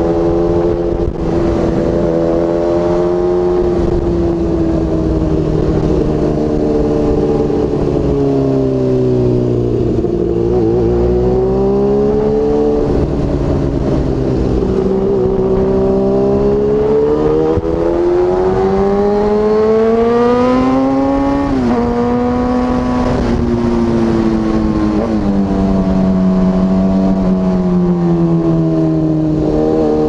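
Kawasaki ZX-6R inline-four engine running under way. Its pitch sags and recovers, then climbs steadily for several seconds. About two-thirds of the way through it drops sharply, then eases down slowly, with a short rise near the end.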